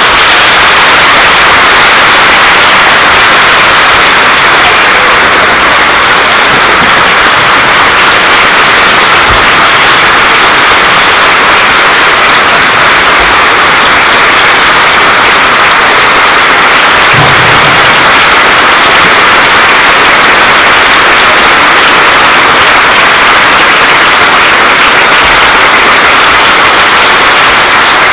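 Audience applauding, loud and steady throughout.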